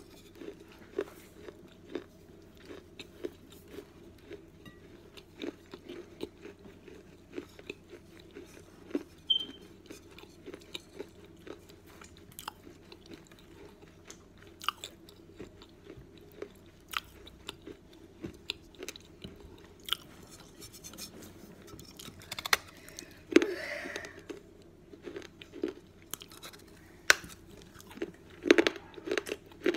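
Pieces of a fired clay cantarito cup being bitten and chewed close to the microphone: irregular sharp crunches and gritty chewing, with a few louder bites about two-thirds through and again near the end.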